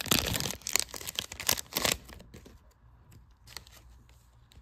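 Foil trading-card pack crinkling and tearing open for about two seconds, then much quieter, with a few light clicks as the cards inside are handled.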